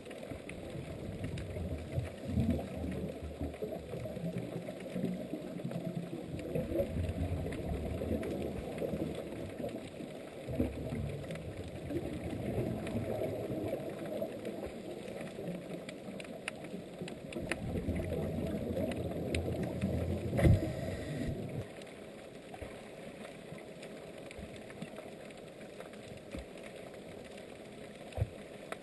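Unidentified low-pitched underwater sound heard through a submerged camera, coming in stretches of low humming pulses that could be a fish or a marine mammal. A sharp knock comes about two-thirds of the way through, after which the low sound drops away. Another knock follows near the end.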